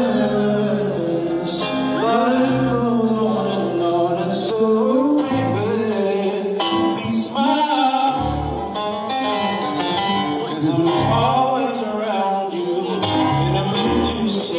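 Live band music: a man sings a slow melody into a microphone over band accompaniment with a moving bass line.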